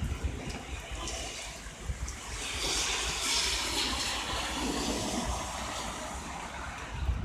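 Steady rain falling, with wind rumbling on the microphone; a hiss swells for a couple of seconds around the middle.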